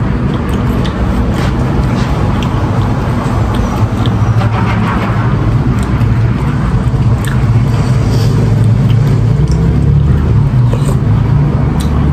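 A loud, steady low rumble fills the background. Small clicks and mouth sounds of someone eating noodle soup with a plastic spoon from a paper cup sit over it.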